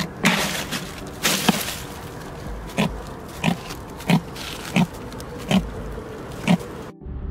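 Jack crevalle grunting in an ice-filled cooler: a crunch and rustle of ice as the fish is laid in, then a short low grunt about every two-thirds of a second, six in all.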